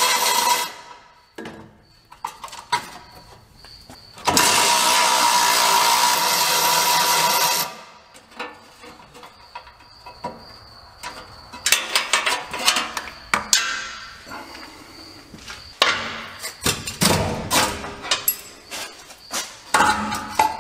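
A cordless power tool spinning out bolts under a truck. It runs in two steady whirring bursts, one ending about a second in and another of about three seconds. From about halfway on, a hand ratchet clicks and metal knocks in quick irregular runs as the crossmember bolts are worked loose.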